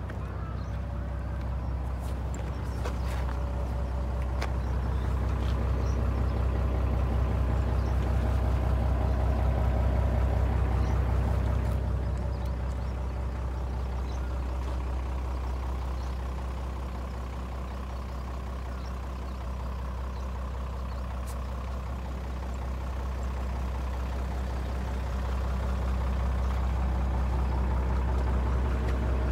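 Hino bus's diesel engine idling with a steady low drone, growing louder and softer as the microphone moves along the body.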